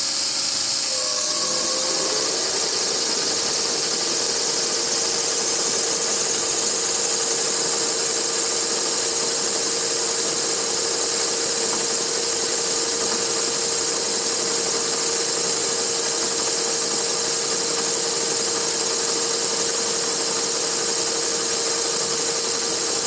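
Metal lathe running steadily while a drill bit bores into the spinning steel workpiece, a steady machine hum with a high hiss.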